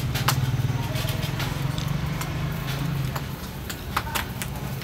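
A steady low hum with scattered sharp clicks of a spoon and bamboo skewers against a plate.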